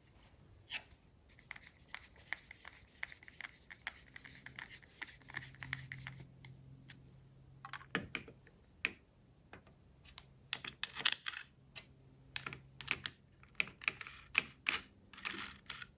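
Screws and small hardware being worked by hand to swap the pin on a woodworking indexing guide: a few seconds of fast, even clicking, then scattered clicks, taps and scrapes as the parts are handled.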